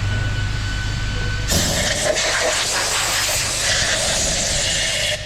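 A steady low hum with a faint high whine, then about a second and a half in a loud steady hiss takes over.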